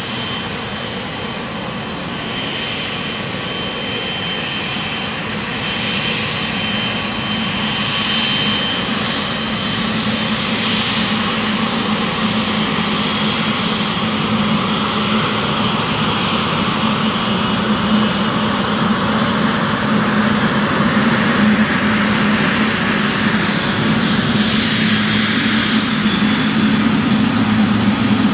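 Boeing 777F freighter's GE90 jet engines at taxi power: a steady low hum with a thin high whine, slowly growing louder as the jet rolls nearer, with a broader rush swelling near the end as it passes close.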